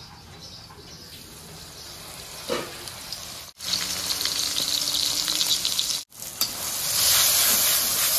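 Taro (kochu) curry frying and sizzling in a pan, heard in three short cut-together stretches that get louder toward the end. There is a brief clink or scrape of stirring about two and a half seconds in. The curry is at the end of its cooking, done and ready to come off the heat.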